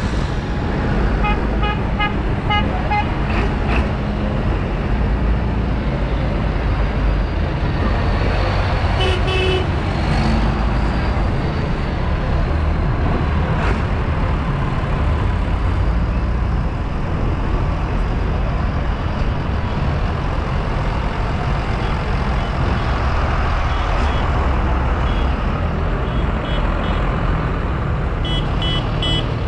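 Tractor engine running steadily under load, a heavy low rumble. Over it come several runs of short, quick horn toots: about a second in, around nine seconds in, and again near the end.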